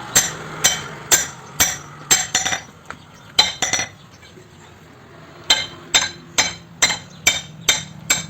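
Hammer blows on hot steel at an anvil while a billhook blade is forged, about two a second, each strike ringing. There are two runs of blows with a pause of a second or two between them.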